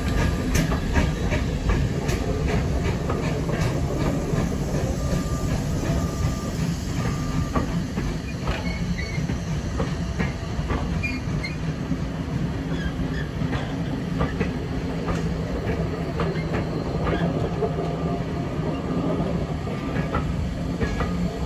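A rake of heritage passenger coaches rolling past, a steady rumble of wheels on rail with repeated clicks as the wheels cross rail joints. Now and then a brief, thin wheel squeal.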